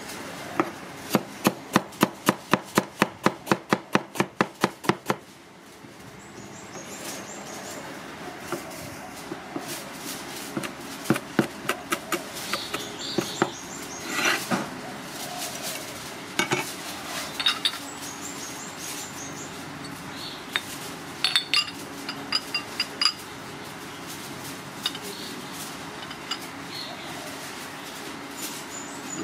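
Stone pestle pounding in a granite mortar, a rapid, even run of about four strikes a second for the first five seconds. After that, scattered clusters of knocks as a cleaver chops on a plastic cutting board.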